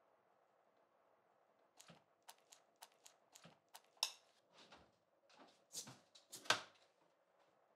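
Small kitchen clatter of crockery and utensils: an irregular run of light clicks, like a spoon tapping a ceramic bowl, then a few louder scraping, rustling handling sounds about four seconds in and again just after six seconds.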